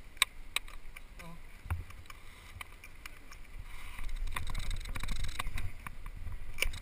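Wind rumbling on a GoPro's microphone, stronger in the second half, with scattered sharp clicks and knocks of ski gear being handled in snow.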